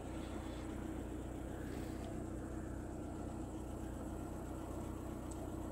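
Car engine idling: a steady low hum.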